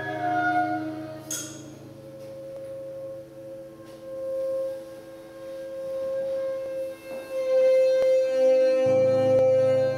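Electroacoustic drone of sustained ringing tones layered from music-box buckets and electronics, the strongest a steady mid pitch. There is a brief hissing sweep about a second in and scattered faint clicks, and a low electronic hum comes in near the end as it grows louder.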